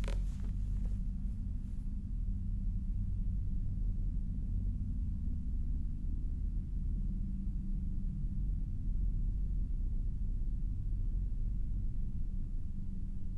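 A low, steady rumbling drone, the dark ambient sound design of a horror film, held without change. A brief rustle comes right at the start.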